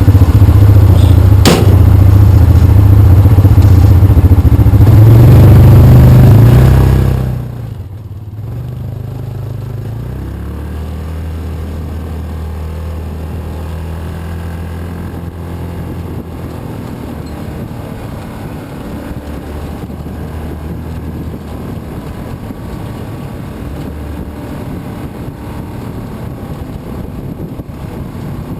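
Yamaha Rhino side-by-side's engine running loud under load, with a sharp click about a second and a half in. About seven seconds in it drops sharply to a much quieter, steady low engine note for the rest.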